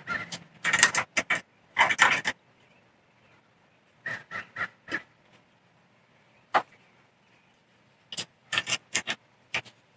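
Scattered sharp clicks and clatter in short clusters, as the jump starter's clamps and cables are handled and clipped onto a truck's jump posts.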